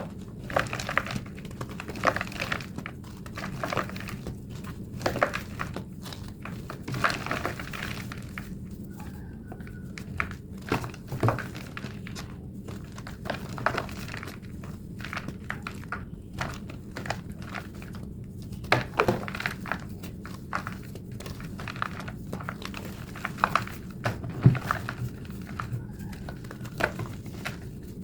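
A thick block of plain white gym chalk being crushed and crumbled by hand, giving irregular crunches, crackles and squeaks in quick succession, sped up. A steady low hum runs underneath.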